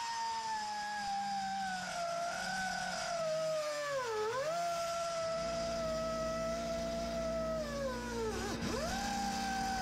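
Cut-off wheel slicing through the truck's stock exhaust pipe: a high, steady whine that dips sharply in pitch and recovers twice, about four and about eight and a half seconds in, as the wheel is loaded in the cut. A low steady hum comes in about five seconds in.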